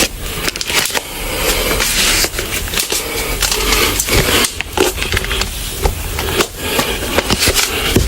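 Loud, uneven rustling and scraping close to the microphone, with scattered clicks.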